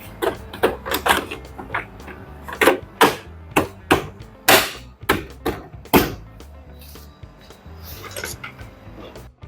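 About a dozen sharp knocks and clicks of a washer dryer's front panel being pushed and tapped back into place, then a softer scrape near the end, over background music.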